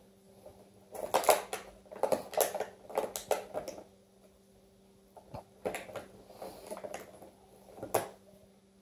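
A cat biting and pawing at a thin clear plastic clamshell container, the plastic crackling and clicking in two spells of rapid scratchy clicks, the first about a second in and the second after a short pause.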